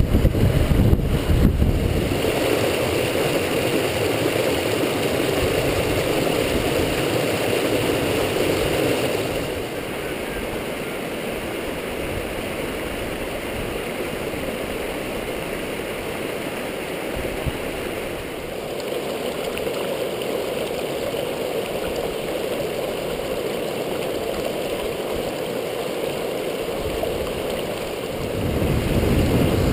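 A mountain creek rushing and splashing over boulders in small cascades, a steady rush of water heard close up. A heavy low rumble on the microphone comes in the first two seconds and again near the end, and the rush drops a little in level about a third of the way in.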